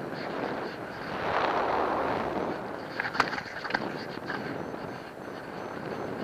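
Wind rushing over an action camera's microphone in flight, swelling about a second in, with a few sharp crackles about halfway through.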